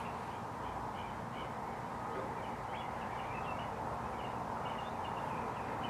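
Small birds chirping, many short repeated chirps, over steady outdoor background noise.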